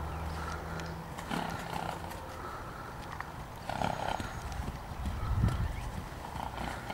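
Horse's hoofbeats on a gravel arena as it trots and then walks up close, with a brief low thump about five and a half seconds in.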